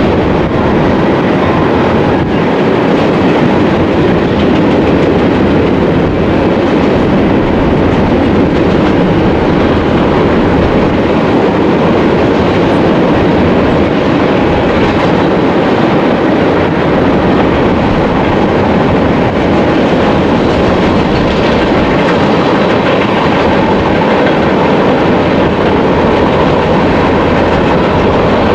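Double-stack container freight train rolling past, a steady rumble with wheel clatter over the rail joints.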